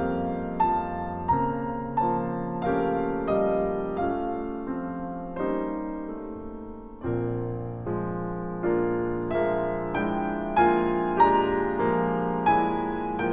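Background piano music: slow notes and chords struck about every two-thirds of a second, each dying away, growing softer around the middle before a new, louder chord about seven seconds in.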